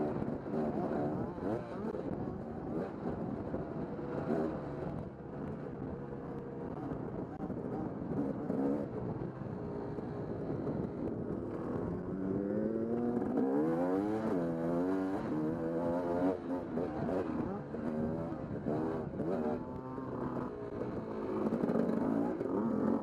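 KTM dirt bike engine running under way, heard from on the bike; from about halfway through its pitch rises and falls repeatedly as the throttle is worked and it revs up.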